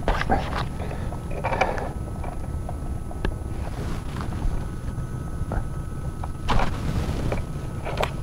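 Scattered clicks, knocks and rustles of fishing gear being handled in a kayak: a fish gripper clamped onto a landed snook and the landing net moved about. There are two longer bouts of rustling, and a steady low rumble runs underneath.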